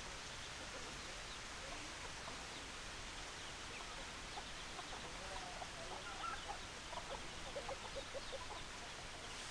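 Hens clucking: short clucks, few at first, then coming thick and fast in the second half, over a steady background hiss.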